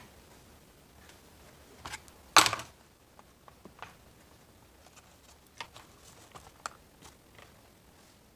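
Plastic recoil starter cover of a Shindaiwa 490 chainsaw being set onto the saw's housing: a small knock, then a sharp clack a moment later about two seconds in. Scattered light clicks and taps of plastic and tools being handled follow.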